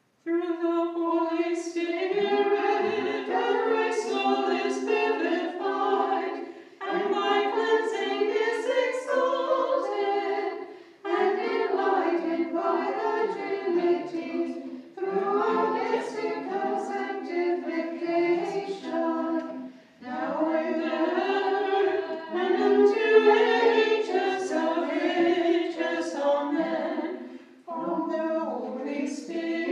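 A small group singing Orthodox liturgical chant a cappella, in phrases of about four to five seconds with short breaks between them.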